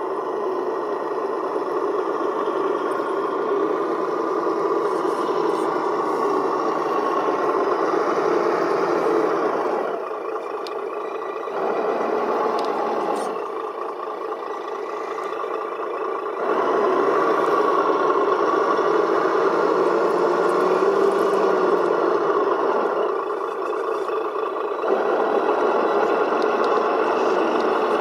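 Simulated MAN V8 truck engine sound from an ESS-One sound module, rising as the throttle opens and falling back toward idle several times.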